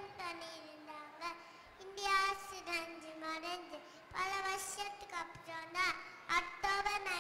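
A young girl singing into a microphone, with notes held long and steady.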